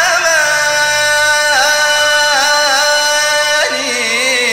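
Arabic song with orchestral accompaniment: a male voice holds one long note, wavering at first and then steady, and drops to a lower note near the end.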